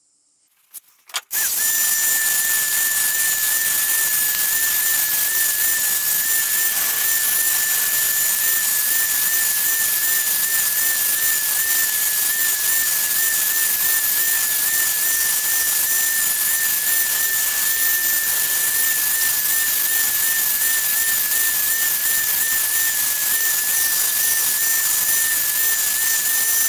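Cordless drill-driver running steadily as a makeshift lathe, spinning a brass workpiece in its chuck against a hand file: a constant high motor whine with a slight waver, over the hissing rasp of the file on the turning brass. It starts about a second in, after a couple of clicks.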